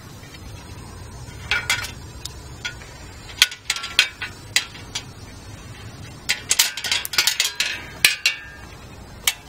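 Light metallic clinks and rattles in irregular clusters as a bicycle's rear fender and its metal stays are worked loose at the rear of the frame and lifted off.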